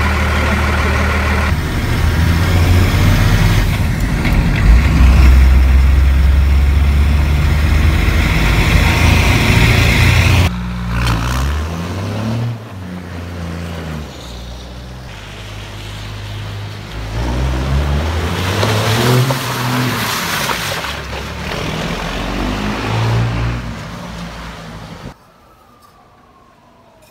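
First-gen Dodge Cummins 12-valve turbo diesel running loud through a new 4-inch Diamond Eye turbo-back exhaust. It is held hard for several seconds, then revved up and down over and over. The sound cuts off abruptly near the end.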